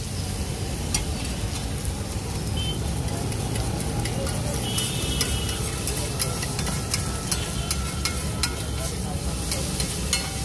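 Steel spatula scraping and tapping on a large flat iron griddle, chopping tomato and onion as they sizzle in melted butter; the clicks come thick and irregular over a steady low rumble.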